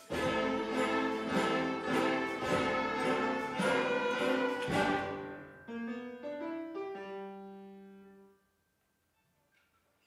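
A school orchestra of strings, woodwind, brass and percussion plays the final bars of a swing piece. The full band plays loudly for about five seconds, then a quieter rising run of notes leads to a held final note that dies away about eight seconds in.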